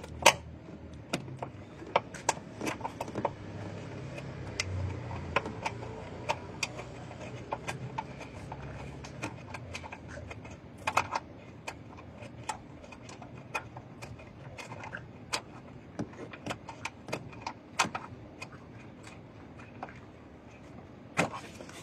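Irregular sharp clicks and metallic clinks of hand-handled tools, keys or parts, scattered through the whole stretch. A faint low hum is under the first half.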